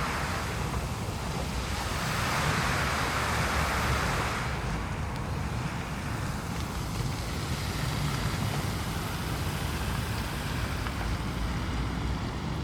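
Low, steady rumble of a jet airliner flying low overhead mixed with the hiss and splash of a fountain's water jets. The hiss is strongest early on and its high part drops away about four and a half seconds in.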